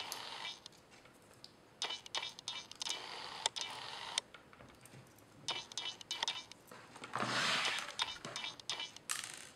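Plastic screen bezel of a Sony VAIO laptop being pressed and snapped back onto the lid: a run of small sharp plastic clicks mixed with scraping and handling noise, with a longer, louder scrape near the end.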